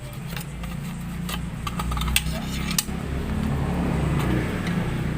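Metal clinks and scrapes of steel wool being packed tight into a motorcycle chicken-pipe exhaust with a metal tool, a few sharp clicks spread through. A steady low hum sits underneath.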